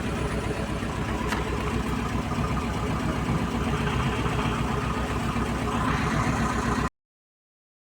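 Freshly overhauled Jeep Compass petrol engine idling steadily with an even, regular beat. The sound cuts off suddenly near the end.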